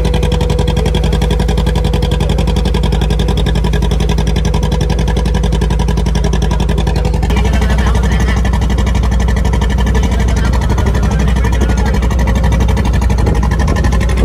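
A small wooden passenger boat's engine running steadily, heard loud from on board as the boat moves across the harbour. Its note changes about seven seconds in.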